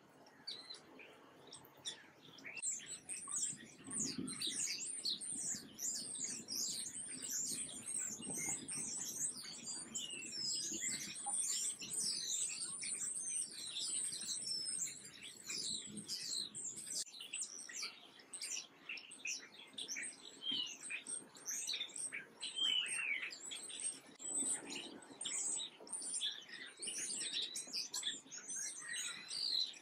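A dense chorus of small songbirds, many quick high chirps and twitters overlapping, coming in about two and a half seconds in.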